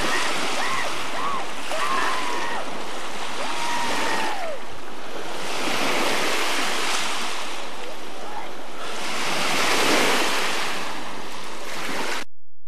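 Waves washing at the shore with wind on the microphone, the hiss swelling twice. A few short, high arching cries sound over it in the first four seconds. The sound cuts off just before the end.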